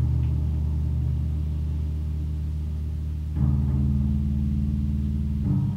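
Electronic music of deep, sustained synthesizer drones. The low chord shifts to new pitches about three and a half seconds in and again near the end.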